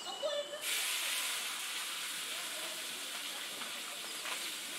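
A few bird chirps, then a steady hiss comes in abruptly less than a second in and carries on unchanged.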